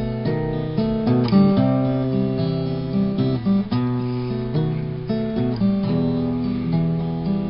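Solo acoustic guitar playing an instrumental piece, chords strummed and picked, changing every second or so.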